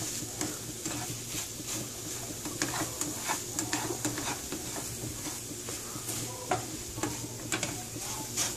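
Spatula stirring and scraping scrambled eggs and sausage around a frying pan in quick repeated strokes, over a steady sizzle of frying as the eggs finish cooking.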